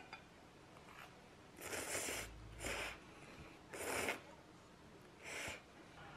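A person slurping noodles: four short slurps, the first the longest, spread over a few seconds.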